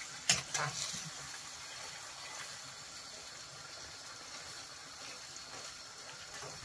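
Chicken pieces sizzling and bubbling in their own juices in a non-stick frying pan as they are stirred and turned with a spatula; a steady hiss.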